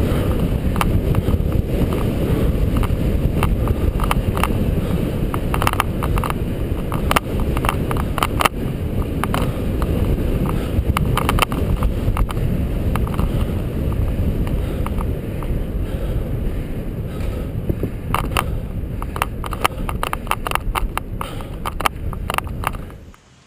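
Bicycle riding fast on a concrete velodrome track: steady wind rumble on the camera's microphone with tyre noise and frequent sharp clicks. The sound cuts off suddenly near the end.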